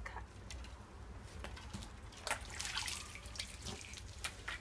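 Faint dripping and light splashing of water, with scattered small clicks, as a hand lifts a thin sheet of ice out of icy water.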